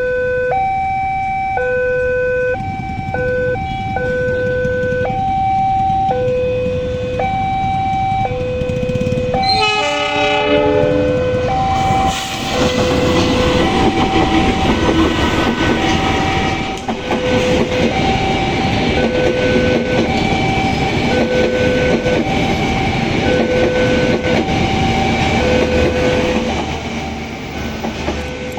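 Two alternating warning tones sounding steadily, as from a level crossing's electronic signal. About ten seconds in a train horn sounds for a second or two. Then a train passes with a rising rush and clatter of wheels on rail while the warning tones keep going.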